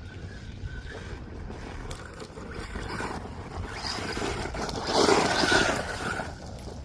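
WLtoys RC car driving: a faint electric-motor whine at first, then the motor and tires grow louder as the car comes near, loudest about five seconds in, before dropping back.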